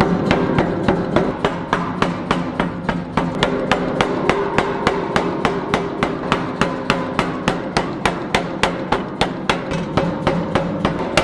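Anyang 165 air power hammer striking a hot steel bar in rapid, even blows, about four a second, drawing the bar down to a taper.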